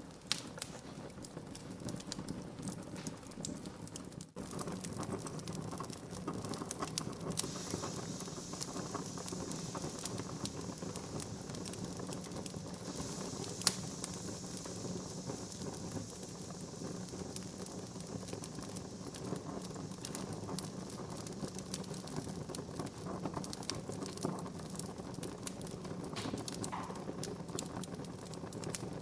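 Wood fire burning in a fireplace: dense crackling and small pops of the burning wood over a low, steady rush of flame, with one sharper pop about halfway through.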